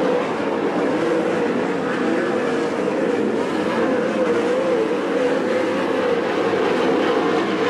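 A pack of 410 sprint cars racing, their 410-cubic-inch V8 engines running together at racing speed, several pitches overlapping and rising and falling as the cars go through the turns.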